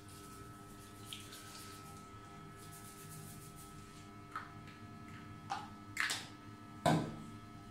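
A few short knocks and clicks, about four in the second half and the loudest near the end, over a faint steady hum.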